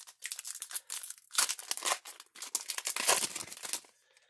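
Foil wrapper of a Pokémon GO trading card booster pack being torn open and crinkled by hand, a dense run of crackles that stops shortly before the end.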